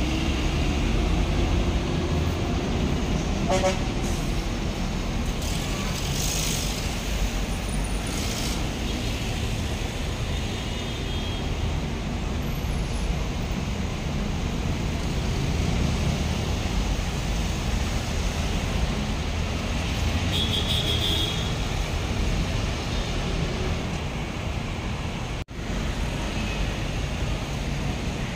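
Road traffic with diesel buses and a jeepney passing close by: a steady engine rumble and tyre noise, with a short horn toot about three and a half seconds in and a brief high-pitched tone around twenty seconds in.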